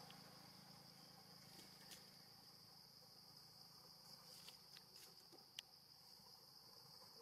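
Faint, steady high-pitched drone of insects, with a few faint clicks scattered through the second half.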